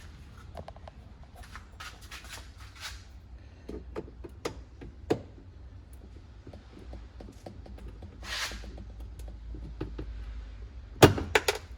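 Scattered light clicks and knocks of hand-handled car parts and tools, with a brief rustling swish about eight seconds in and a quick cluster of sharp clicks, the loudest sound, near the end.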